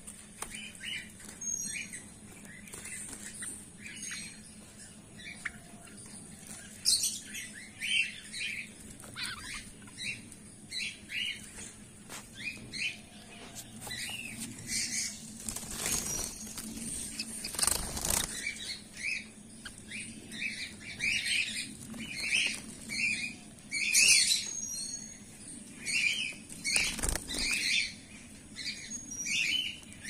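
Caged finches, Gouldian finches among them, chirping: many short, repeated calls. A couple of brief flurries of wing flapping come a little past halfway and another near the end.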